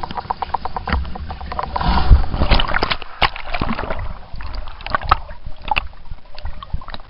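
Swimming-pool water heard with the microphone underwater: a muffled, fast, even pulsing for the first two seconds, then a rush of churning bubbles about two seconds in, followed by scattered pops and knocks.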